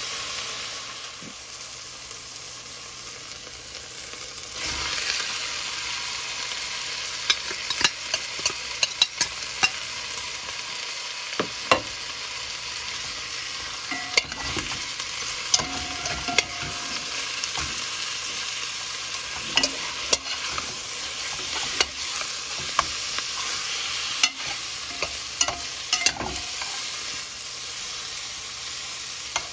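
Salmon pieces, sliced onion and sweet pepper sizzling in hot oil in a metal pot, the frying louder from about four and a half seconds in. A metal spoon clicks and scrapes against the pot many times as the food is stirred and turned.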